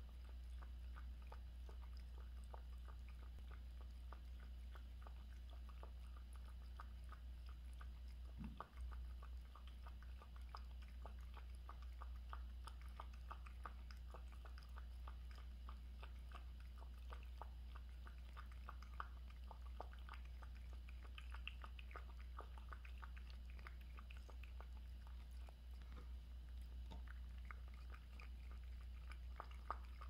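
Siamese cat lapping water from a glass mug: a quick, steady run of small clicks from its tongue, over a low steady hum.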